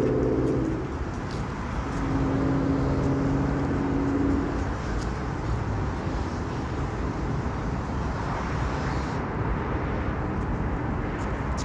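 Road traffic noise with vehicle engines running. A steady engine hum fades out in the first second, and another hum runs from about two to nearly five seconds in.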